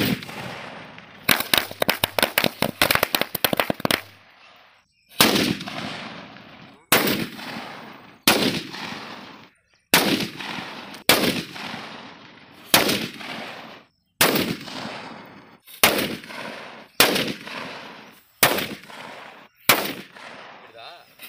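Valangaiman country-made firecrackers (nattu vedi) exploding. About a second in there is a rapid string of cracks lasting nearly three seconds. Then comes a series of about a dozen single loud bangs, each followed by a fading echo.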